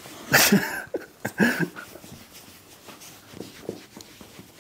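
Two short voice-like sounds about a second apart, then a soft rustle of sock-covered hands rubbing over a short-haired dog's coat, with a few faint smaller sounds.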